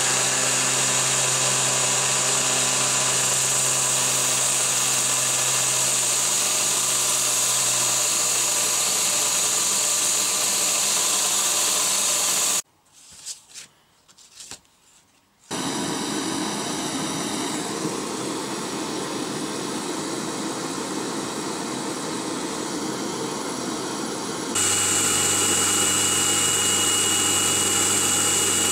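Belt grinder running steadily with a steel rod, spun in a cordless drill, grinding against the sanding belt to form a point. The grinding cuts off after about twelve seconds, leaving a few clicks. A quieter machine then runs, and from about twenty-five seconds a louder machine starts up with a low hum and a thin high whine.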